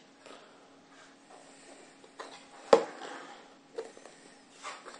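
A cardboard watch box is set down on a wooden tabletop with one sharp knock about halfway through, then a few softer taps and rustles as the box is handled.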